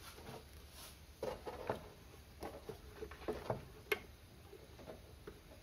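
Soft knocks and light clicks of a plastic 4-litre engine oil jug being handled and tipped into the oil filler, with one sharp click about four seconds in.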